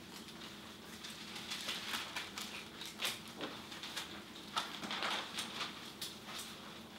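Faint, irregular rustling and light taps, a few to each second, over a low steady room hum.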